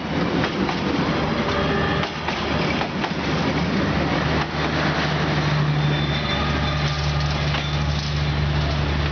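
Passenger train coaches rolling past close by, wheels running along the rails, the noise of the train drawing away as the last coach passes. A steady low hum sets in about halfway.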